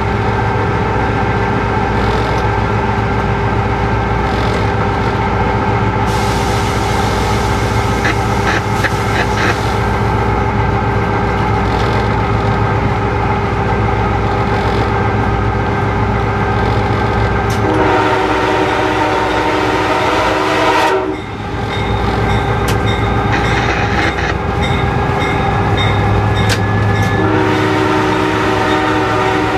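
Locomotive horn sounding inside the cab: one long blast about two-thirds of the way through that cuts off sharply, and another starting near the end, over the steady running noise of the locomotive and its wheels on the rail.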